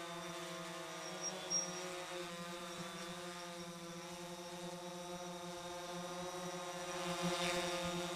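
DJI Phantom 4 quadcopter's propellers humming at a steady pitch in flight, growing a little louder near the end.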